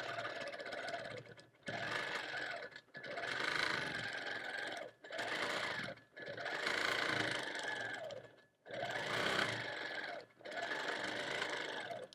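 Longarm quilting machine stitching in about seven short runs, each a second or two long, with brief pauses between them and a steady high motor whine while it sews.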